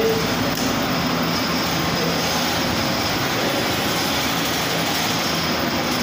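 Air compressor running steadily, pumping the tank up toward the cut-off pressure set on its pressure switch.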